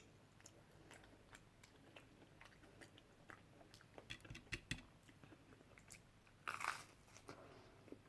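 A person chewing takeaway food, with faint wet mouth clicks scattered throughout and one short, louder crunch near the end.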